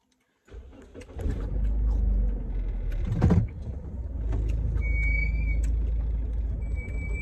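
Car engine starting and running with a steady low rumble, with a brief louder burst about three seconds in. A high electronic chime tone sounds from about five seconds in.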